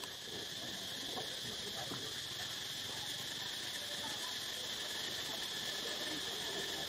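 Steady chorus of insects in the forest, an even high-pitched buzz that does not change.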